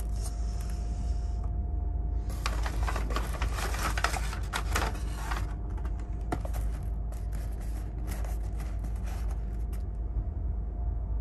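Steady low rumble of the moving Mk3 sleeper coach heard from inside the cabin, with two spells of paper and cardboard rustling and clicking, about two seconds in and again around seven seconds in, as the breakfast bag, box and coffee cup are handled on the table.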